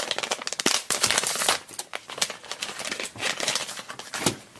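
Foil blind bag crinkling and crackling in the hands as it is opened and the card inside is pulled out: a dense run of sharp, irregular crackles that thins out near the end.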